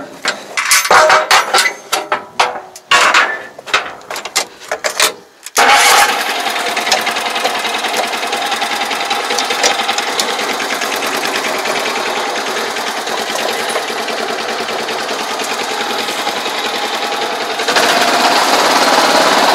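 A few loud separate knocks and clatters, then a small engine on a crawler-tracked pest-control sprayer starts about five and a half seconds in and runs steadily. Near the end it runs louder as the throttle is opened.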